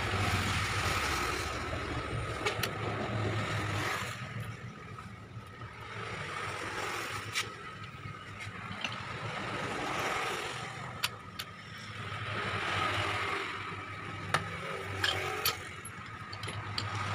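Motor vehicles passing, their noise rising and fading several times, with a few sharp metallic clicks from a pipe wrench working the rack end off a steering rack.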